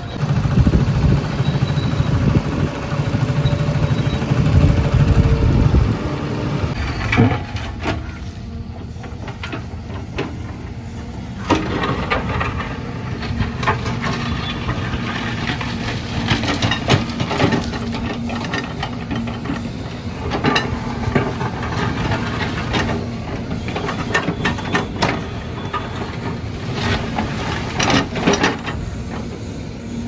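Tata Hitachi Shinrai backhoe loader's diesel engine running hard for the first six seconds. Then, over the running engine, the backhoe bucket works broken concrete, with irregular knocks, scrapes and clatter of concrete chunks.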